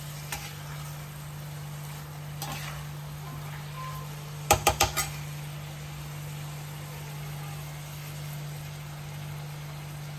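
A metal ladle knocked four times in quick succession against a metal kadhai about halfway through, with a few lighter taps before it. A steady low hum runs underneath.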